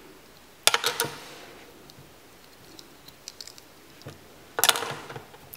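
Hard plastic LEGO Duplo pieces clicking and knocking together as they are handled. There are two sharp clicks about a second in, a few faint ticks, then a quick cluster of clicks near the end.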